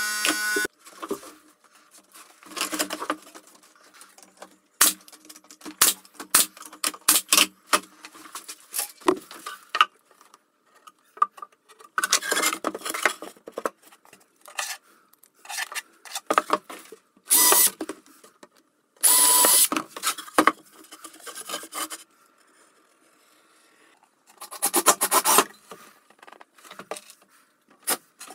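A cordless drill's motor whine cuts off less than a second in. Then come plywood panels being handled and fitted: scattered wood-on-wood knocks and taps, with several longer scrapes and rubs.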